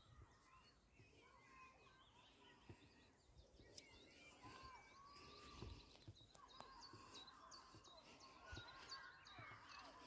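Faint outdoor birdsong: several small birds chirping and trilling at once in short, overlapping phrases, with a few soft low thumps.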